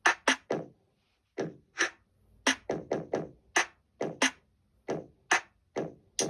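A song's electronic beat played through an iPad's built-in speakers: sharp, separate drum hits about two or three a second with little sound between them.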